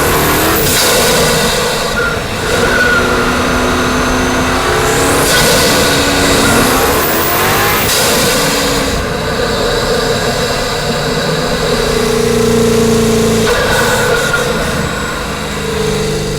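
4.0 TFSI twin-turbo V8 with an Eventuri carbon fibre intake revving and accelerating. The pitch climbs near the start and again over a few seconds in the middle, with steadier stretches between.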